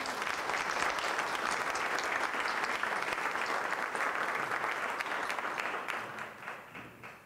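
Audience applauding, a dense clatter of many hands clapping, which tapers off near the end.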